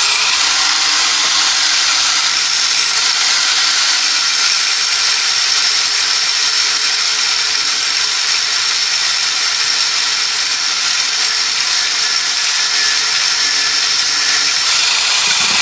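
Electric angle grinder switched on and spinning up to a steady high whine, its abrasive disc cutting through a metal pipe with a loud hiss of grinding. The whine drops slightly as the disc bites into the pipe about three seconds in and rises again near the end.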